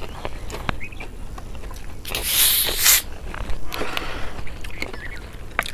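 Screw cap of a plastic soda bottle twisted open: the carbonation lets go in a loud hiss about two seconds in that lasts about a second, then a fainter hiss follows. A low rumble of wind runs underneath.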